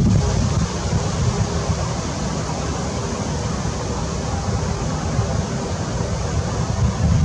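Steady outdoor wind and water noise, an even hiss, with low wind buffeting on the microphone that eases about half a second in and returns near the end.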